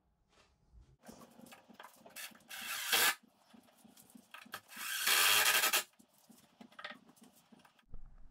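Tool work on wood: scattered scrapes and knocks, with two louder rasping bursts, a short one about two and a half seconds in and a longer one of about a second in the middle.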